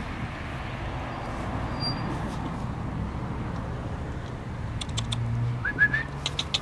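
A low steady outdoor rumble, with a few light clicks and three quick rising high chirps about five and a half seconds in.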